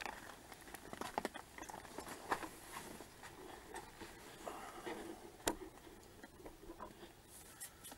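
Handling noise from a camera being moved and turned around: irregular clicks, taps and rustles, with a sharp knock about two seconds in and another about halfway.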